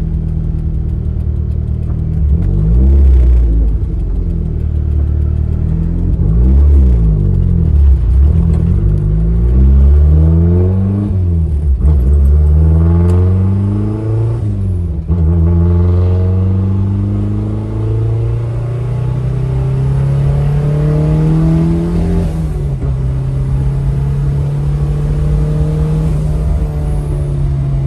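Turbocharged Mazda Miata's four-cylinder engine driving, the revs climbing and dropping back with gear changes several times, then a long slow rise in revs, a drop near the two-thirds mark, and steady running.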